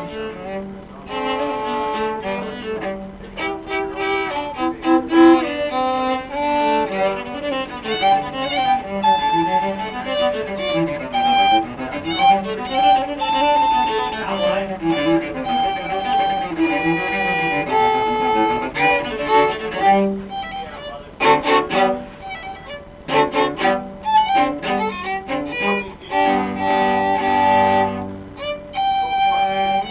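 Violin and cello playing a classical duet with bowed notes, broken by a few short pauses between phrases.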